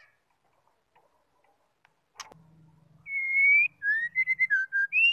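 White-rumped shama whistling: one clear held note that rises slightly, then a quick run of short whistled notes stepping up and down in pitch. A single sharp click comes just before the song.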